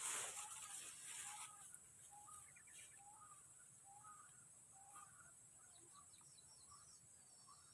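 A bird calling repeatedly, short rising-and-falling notes about once a second, faint against a steady high background hiss. There is a brief louder burst of noise in the first second.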